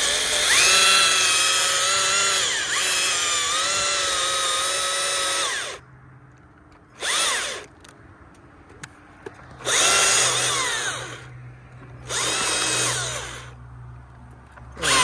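Chainsaw cutting tree limbs: one long cut of about six seconds with a high whine that dips under load, then a brief blip and two shorter bursts, with a low steady hum in the pauses.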